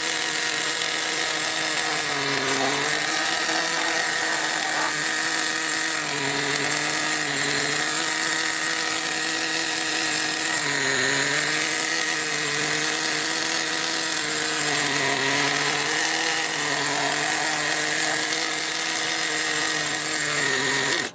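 Small O.S. nitro engine in an RC monster truck idling steadily while it is being tuned, its pitch sagging briefly a few times. It cuts off suddenly at the end.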